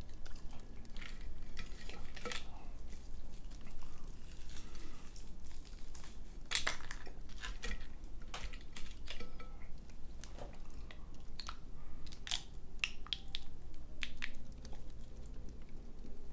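Close-miked eating sounds: crispy fried chicken breading crackling as it is pulled apart by hand, bitten and chewed, with irregular sharp crunches that come thickest in two clusters, in the middle and near the end.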